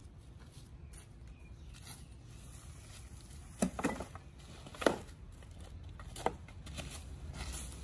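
Rubbish being rummaged through by hand: tarpaulin and debris rustling, with a few sharp knocks and clatters, two of them loudest about halfway through and one more shortly after.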